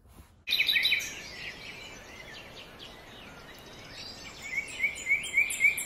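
Birds chirping over a steady outdoor background hiss, starting about half a second in, with a quick run of repeated chirps near the end.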